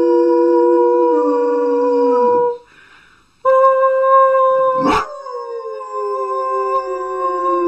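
A dog howling, its howl sliding slowly down in pitch beneath a steady held musical note. Both break off about two and a half seconds in and start again a second later, with a sharp click about five seconds in.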